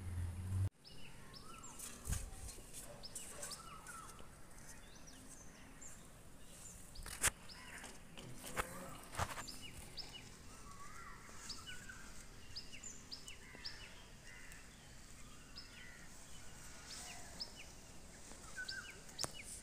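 Small birds chirping over and over in the background, with a few sharp clicks or taps, one louder than the rest about seven seconds in. A low hum at the very start cuts off abruptly before the first second is out.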